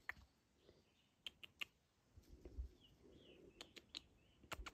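Quiet woods: a cottontail rabbit shifting in dry leaf litter makes a few faint, sharp rustling ticks in small groups, with faint short bird chirps in the background.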